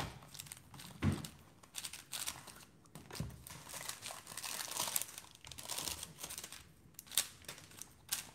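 Paper and cardboard packaging crinkling and rustling as a small puzzle box is opened, over quick plastic clicks of a 4x4 speed cube being turned.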